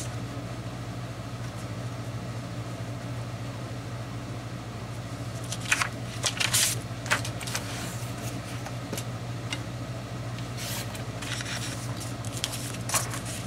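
Paper and cardstock rustling and sliding as sheets are handled and placed on a scrapbook layout, in short bursts about six seconds in and again near the end, over a steady low hum.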